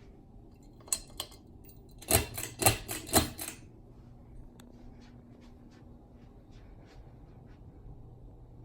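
Ceiling fan pull chain and switch: two sharp clicks, then a short burst of loud clacks and rattling, followed by faint scattered ticks over a faint steady hum.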